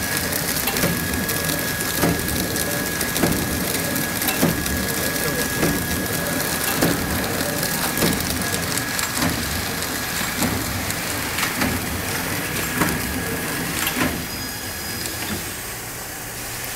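Horizontal flow-wrap bagging machine running: a steady mechanical hiss and clatter with a sharp knock about every 1.2 seconds, one per pack as the crimp jaws seal and cut the film. A faint high whine sounds through the first half; the knocks stop about 14 seconds in and the noise drops a little.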